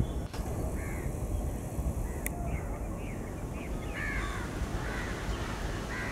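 Crows cawing over and over, several at once from about halfway in, over a low steady rumble.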